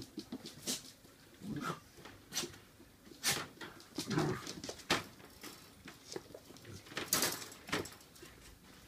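Puppies playing on a hard tiled floor: short whimpers among scattered sharp clicks and scuffles.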